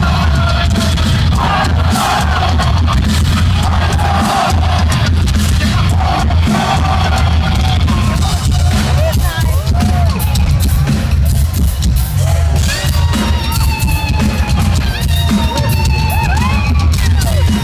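Live rock band playing loud through a concert PA, with heavy drums and bass, heard through a phone microphone; crowd noise underneath.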